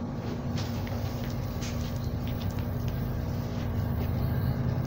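Approaching diesel train: a low, steady rumble with an engine tone, growing louder toward the end as it nears.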